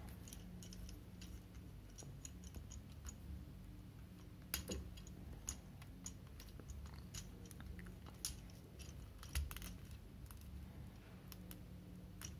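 Faint handling of hard plastic Transformers toy figures (2002 Hasbro Robots in Disguise) as they are turned and fitted together: scattered small clicks and taps of plastic joints, with a few louder clicks around the middle, over a low steady hum.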